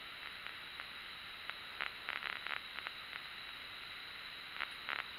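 Quiet room with a steady hiss, broken by a few faint, short rustles about two seconds in and again near the end.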